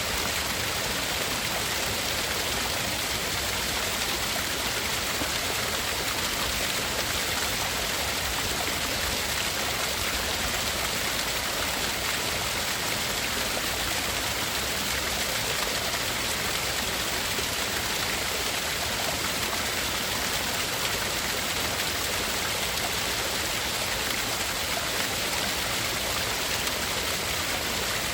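Tinnitus-masking noise: a steady, unchanging hiss, strongest at the high end, with two narrow high bands cut out of it.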